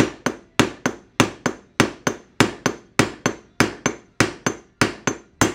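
Hammer striking a bearing race driver, driving a bearing race into a Nissan Hardbody (D21) wheel hub: a steady run of sharp metallic blows, about three a second, each hard blow followed by a lighter bounce of the hammer on the driver head, with a short metallic ring.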